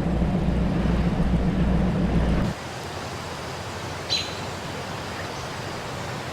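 A low, pulsing rumble that cuts off abruptly about two and a half seconds in. Quiet steady forest ambience follows, with one short, sharp bird chirp about four seconds in.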